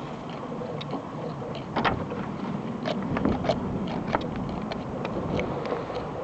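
Blizzard wind blowing steadily, with many scattered sharp ticks and clicks.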